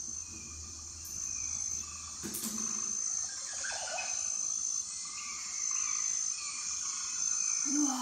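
Rainforest ambience: insects trilling in regular high pulses about once a second over a steady hiss, with bird calls chirping among them.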